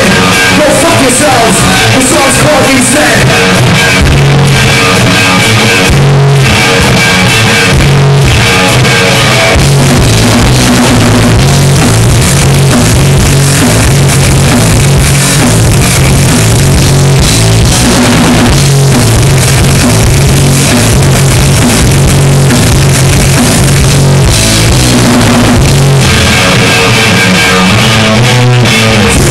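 Rock band playing loud and live: distorted electric guitars, bass and drum kit, with a few short, sudden breaks where the band stops together.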